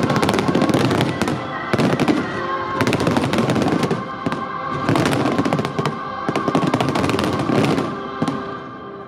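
Finale barrage of fireworks: dense crackling and banging bursts coming in waves about once a second, with music playing underneath, dying away near the end.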